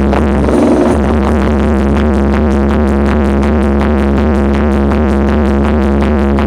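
Loud electronic dance music with a steady, fast beat and held synthesizer tones, played through a high-powered sound system.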